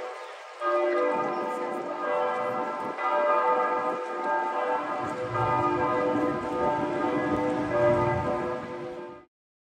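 Church bells pealing, several bells overlapping and struck again every couple of seconds, each stroke ringing on and fading. The sound cuts off abruptly near the end.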